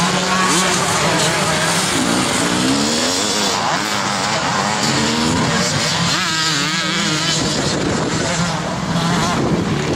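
Several vintage twin-shock motocross motorcycles racing, their engines revving up and down in overlapping rising and falling notes as riders accelerate over the jump. One bike gives a strong, high rising-and-falling rev about two-thirds of the way through.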